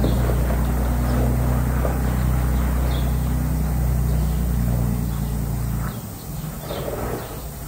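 Heavy diesel truck engine running with a steady low drone, which stops abruptly about six seconds in.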